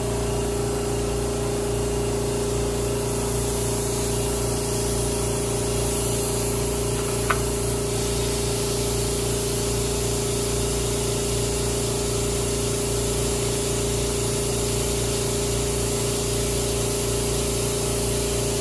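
Air compressor running steadily, a constant motor hum with a steady tone in it. A single light click about seven seconds in.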